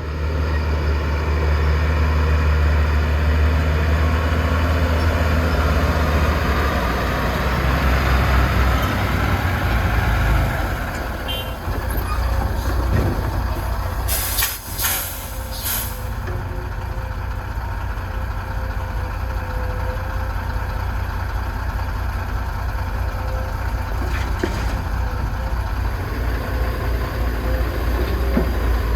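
Heavy diesel engine of an excavator working a loading cycle, running steadily with a deep drone that eases off a little after the first third. About halfway through, a few short, sharp hisses cut in.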